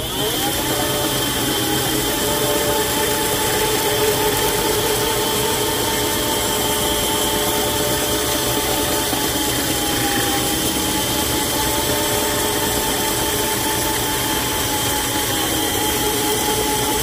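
Motorized line-spooling machine turning an Avet EXW50 reel and winding 100 lb 12-strand braided line onto it. It is a steady motor whine that rises in pitch as it spins up at the very start, then holds steady.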